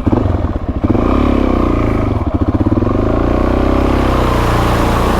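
Suzuki DR-Z400S single-cylinder four-stroke engine revving up under load as the bike is ridden into a deep mud-and-water hole, getting louder about a second in, its pitch wavering.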